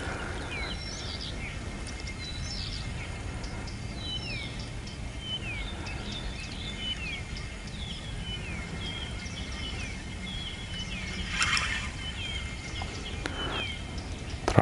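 Small songbirds singing, a run of short, quick, falling chirps repeated over and over, above a steady low rumble. A brief rustle comes near the end.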